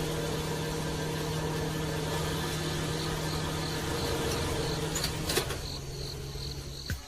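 Small electric motor running steadily with a low hum and whir, with a couple of sharp clicks about five seconds in.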